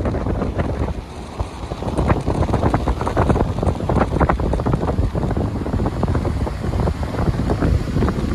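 Wind buffeting the microphone in gusts, over ocean waves breaking and washing across rocks below.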